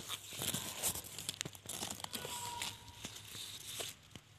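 Leaves and small branches rustling and crackling against the microphone as it is pushed through a leafy bush, with many sharp twig snaps; it dies down near the end.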